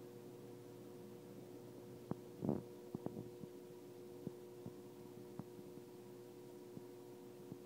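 Faint steady hum of reef aquarium pumps, with scattered light clicks and a brief rustle about two and a half seconds in.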